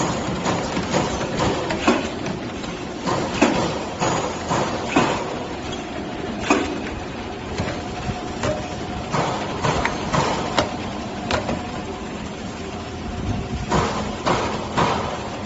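Potato-chip paper-can sealing machine running: a steady machine hum under irregular metallic clanks and knocks, roughly one or two a second.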